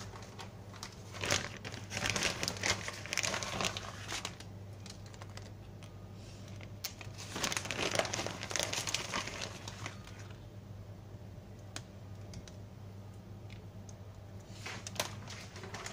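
Plastic bag of shredded cheese crinkling as it is handled, in two bouts of rustling, the second about seven seconds in. A low steady hum runs underneath.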